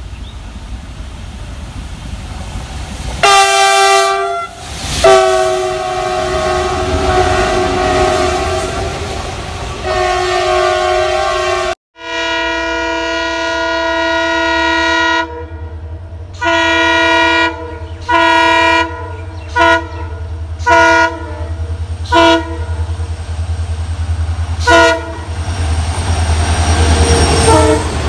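Indian Railways diesel locomotives sounding multi-tone chord horns. In the first part, a horn gives a short blast, then a long one and another, cut off by an edit about twelve seconds in. After that, a WDG4 diesel locomotive blows one long blast and then a string of about seven short toots as it approaches, and its engine and wheel rumble grows loud near the end as it passes close.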